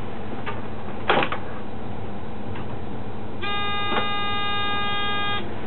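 Cab of an Alstom LINT 41 diesel railcar standing still with its engine idling steadily. A sharp click sounds about a second in, and later a steady electronic tone sounds for about two seconds.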